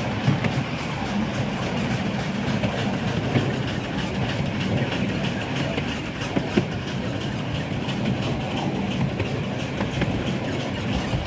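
Steam-hauled narrow-gauge train running, heard from inside a carriage: a steady rumble of wheels on rail with light clickety-clack.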